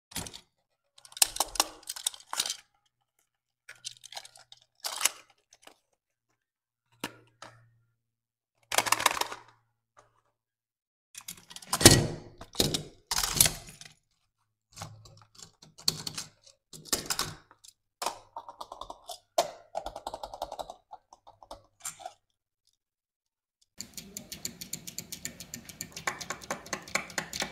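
Die-cast toy cars and their cardboard boxes being handled: scattered clicks, taps and cardboard scrapes. Near the end comes a rapid, even ticking as a small die-cast car is pushed along under a fingertip.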